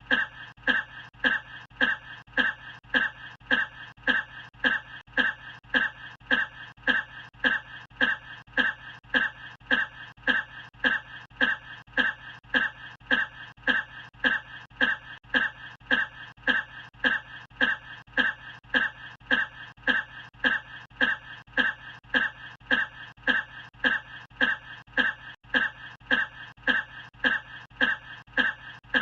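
A person's short cough looped over and over, each repeat identical and evenly spaced, a little under two coughs a second.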